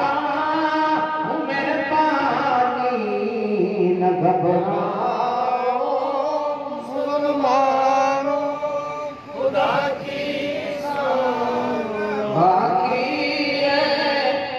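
A man chanting a devotional verse in a slow melismatic style, holding long notes that slide up and down in pitch, with a short pause for breath about nine seconds in.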